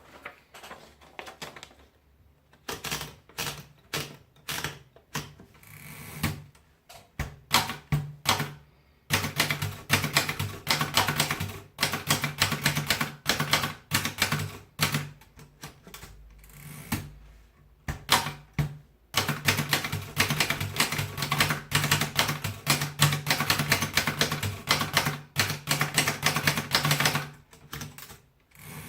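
Remington 9 typewriter being typed on. The keys strike as clicks, scattered at first, then in long fast runs of keystrokes with a brief pause about two-thirds of the way through.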